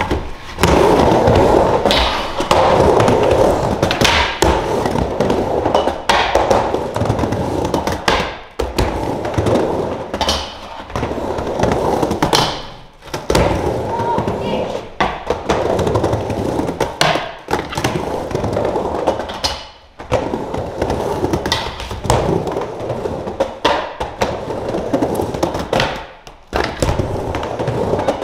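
Skateboard wheels rolling back and forth across a mini ramp, with sharp knocks from the board striking the ramp. Brief lulls come every few seconds.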